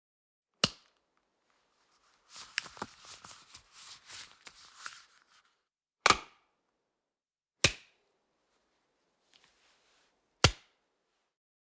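Sound-effect cracks like gunshots: four single sharp bangs spaced a few seconds apart, with a patter of smaller crackling pops between the first and second.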